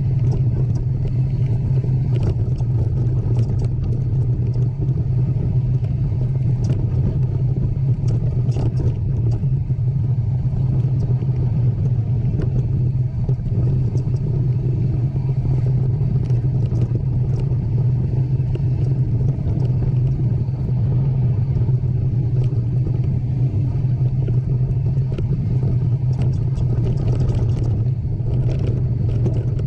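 A steady low rumble that holds level throughout, with scattered light clicks and rattles over it.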